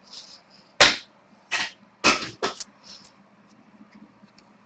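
Hands handling trading cards in clear plastic sleeves and holders: four sharp plastic clicks about half a second to a second apart, with brief crinkly rustling between them.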